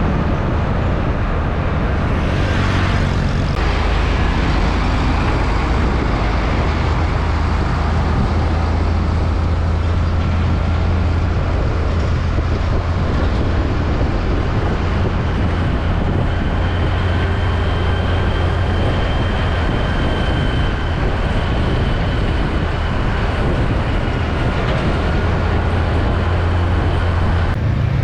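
Heavy container trucks passing close by in road traffic: a steady low diesel engine rumble with tyre and road noise, and a brief louder rush of noise about two seconds in.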